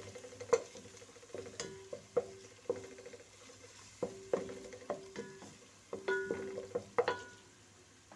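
Spoon stirring ginger, garlic and browned onions frying in oil in a large sufuria, knocking against the pot so that it rings at each stroke, over faint sizzling. The knocking stops near the end.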